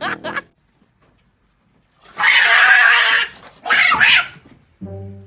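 A cat hissing twice, one long harsh hiss and then a shorter one, with music starting near the end.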